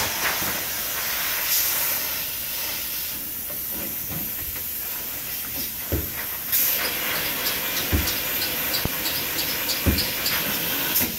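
Spray foam injection gun hissing steadily as foam is forced through a hole into an existing wall cavity. A few dull knocks come through, and in the second half a run of light clicks comes about twice a second.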